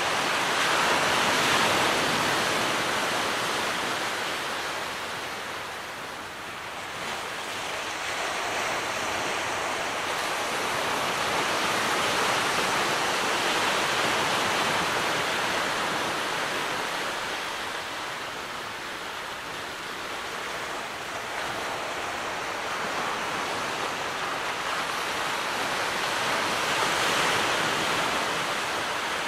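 Gentle surf washing in on the shore: a continuous rush of small waves that swells and eases slowly, loudest about a second in, around the middle and near the end.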